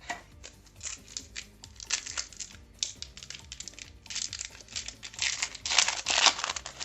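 Foil trading-card booster pack wrapper crinkling and tearing in the hands, in quick clusters, loudest near the end. Soft background music underneath.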